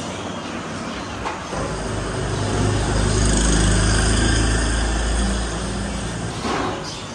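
A motor vehicle's low engine rumble that swells from about a second and a half in, is loudest in the middle, then fades away. A light metal clink of utensils comes about a second in.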